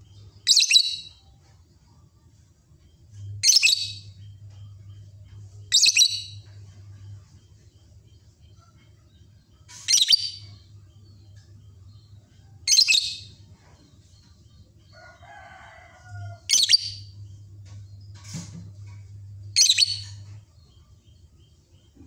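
Lovebird giving single loud, shrill chirps every few seconds, seven in all.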